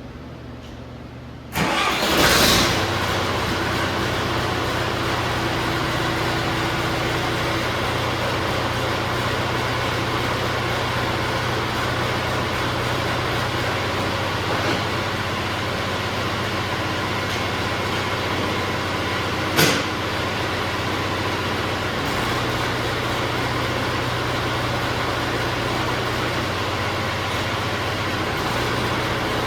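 John Deere 450C bulldozer's diesel engine coming in suddenly about a second and a half in, then running steadily. A single sharp click is heard about two-thirds of the way through.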